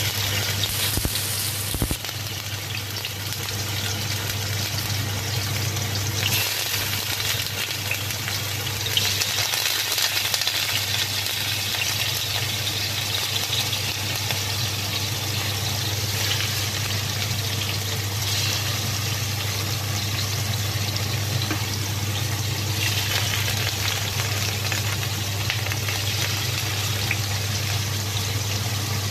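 Blocks of tofu sizzling as they fry in hot oil in a stainless steel pan, a steady crackling hiss that swells now and then. A steady low hum runs underneath.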